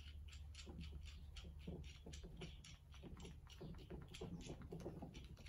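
Faint, quick clicking and light crinkling as a nut and other small hardware are handled in a plastic parts bag.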